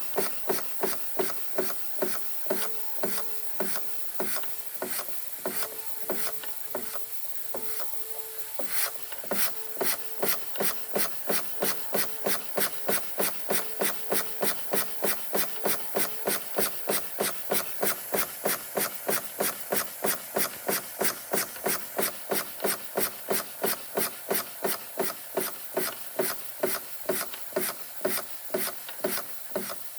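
Bing 130/383 toy steam engine running, its exhaust beating out an even rasping rhythm of about three beats a second that grows steadier after about nine seconds.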